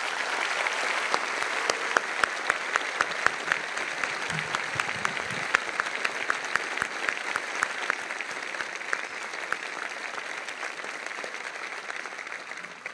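A large crowd applauding, with individual nearby hand claps standing out sharply over the general clapping; the applause dies away near the end.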